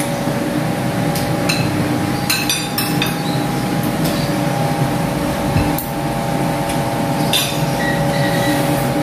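Metal spoons and forks clinking and scraping against ceramic plates while eating, a handful of sharp clinks with a cluster about two and a half seconds in, over a steady background hum.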